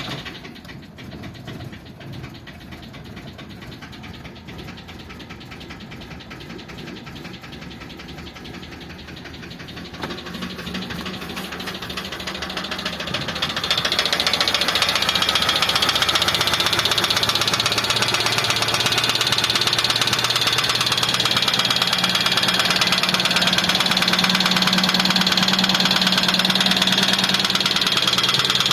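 ZMZ-406 petrol engine running just after starting, with a rapid, even ticking knock that the owner suspects may be the hydraulic lifters. The sound grows much louder about halfway through and then holds steady.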